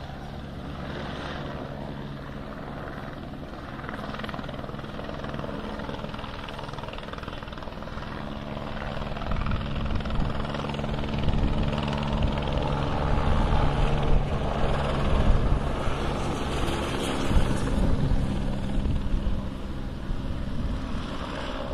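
A Military Police helicopter flying overhead, its rotor and engine a steady beating hum. It grows louder about halfway through as it comes nearer.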